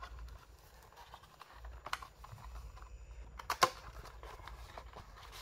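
Cardboard packaging being handled: a black box insert lifted out and shifted in the hands, with soft rustling and a few light clicks and taps, the sharpest about two seconds and three and a half seconds in.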